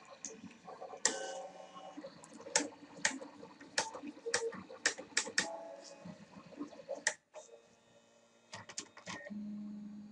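Motorised drawing arm's stepper motors driving its stylus across a TactiPad drawing board: a run of sharp, irregular clicks over a faint motor whine. Near the end it gives way to a steady low hum as the arm travels.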